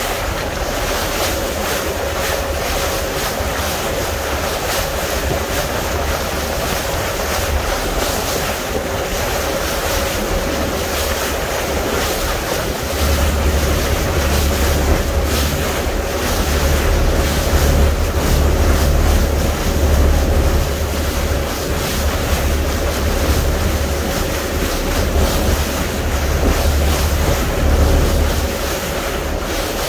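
Boat under way on open sea: wind buffeting the microphone and water rushing along the hull, over a steady engine hum. The low wind rumble grows louder about halfway through.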